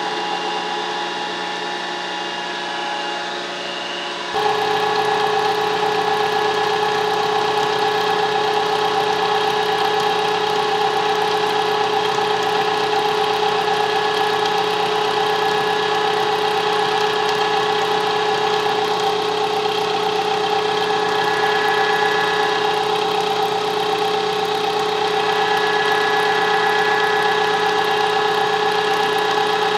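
Milling machine running a roughing end mill through a metal vise-jaw blank under flood coolant: a steady machining sound with a constant spindle tone. About four seconds in the sound changes abruptly and gets louder, then holds steady.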